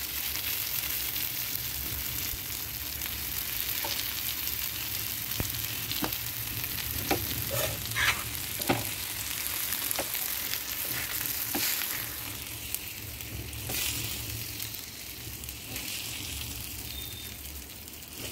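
Pieces of rohu fish sizzling as they shallow-fry in oil in a flat pan, with scattered clicks and scrapes of a metal spatula as they are turned and lifted out. The sizzle eases a little about two-thirds through.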